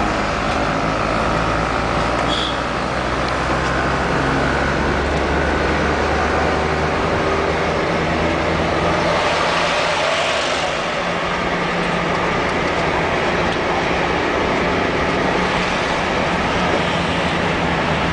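Car driving on a road, heard from inside the cabin: a steady engine hum under tyre and road noise. A rush of noise swells and fades about nine seconds in.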